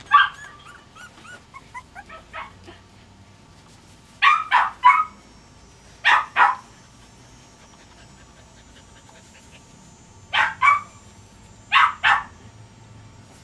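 A small dog whining and yipping at a high pitch for the first couple of seconds, then barking in short runs of two or three sharp barks, four times.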